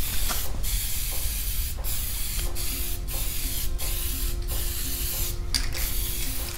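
Aerosol spray-paint can hissing as primer is sprayed onto a plastic body panel, in spurts of about a second broken by short pauses.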